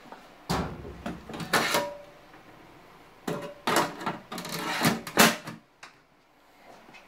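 Front cover of a sheet-metal dryer-vent lint trap box being pulled open and put back, with two rounds of clattering knocks of cover against metal housing. The second round ends in a sharp snap about five seconds in.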